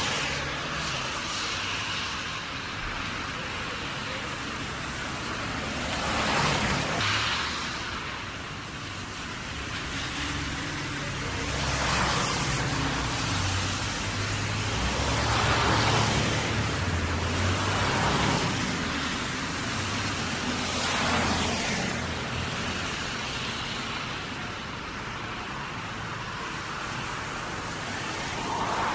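Cars passing one after another on a wet street, their tyres hissing through standing water. Each pass swells up and fades every few seconds over a steady wash of traffic noise, with a deeper engine rumble during one longer pass in the middle.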